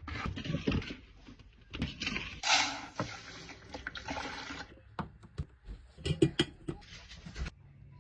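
Kitchen work sounds: a few seconds of rushing, water-like noise, then a quick series of sharp clicks and knocks.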